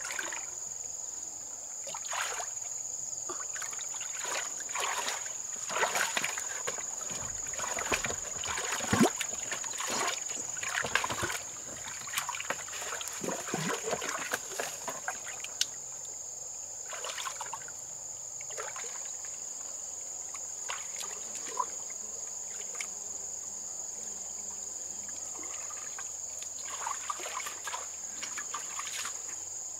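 Irregular splashing and sloshing in shallow water, busiest a few seconds in and again briefly near the end, over a steady high-pitched insect drone.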